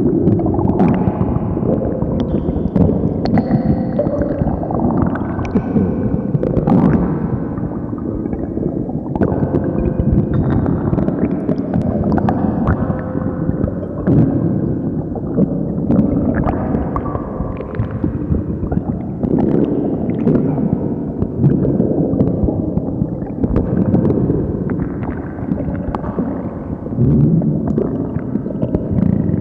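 A stomach growling very loudly, with continuous gurgling and rumbling broken by frequent small bubbling pops.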